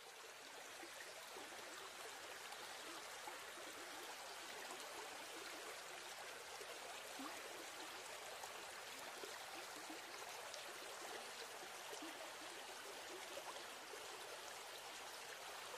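Shallow stream running over rocks: a faint, steady babbling rush of water that fades in at the start.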